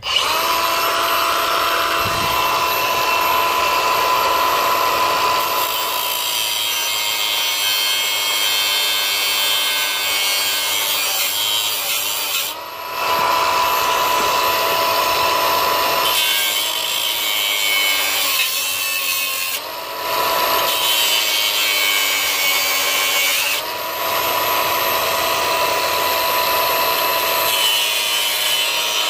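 Small high-speed power tool cutting slots into the plastic housing of a seat belt retractor, a steady whine that sags slightly in pitch under load. It starts abruptly and briefly drops off about three times, around the middle and two-thirds of the way through.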